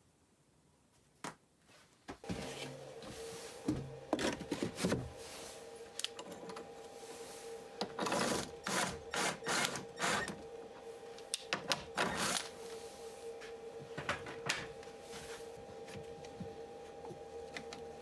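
Workshop sounds of wood being worked: a steady machine hum from about two seconds in, under repeated knocks, clicks and scraping.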